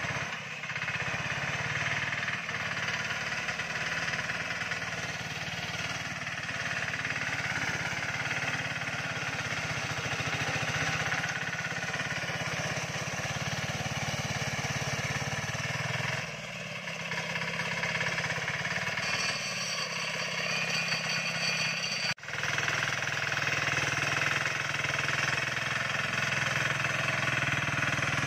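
Small engine of a homemade tracked all-terrain vehicle running steadily as the vehicle drives, with a short drop in level about 16 seconds in and an abrupt break at about 22 seconds.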